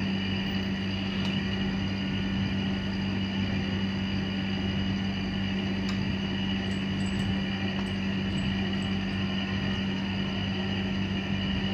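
Steady machine hum with an unchanging pitch, and a few faint clicks on top.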